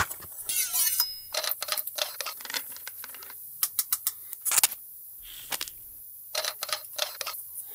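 Small, sharp plastic clicks and taps, coming irregularly and sometimes in quick runs, as an insulin pen and its hard case are handled.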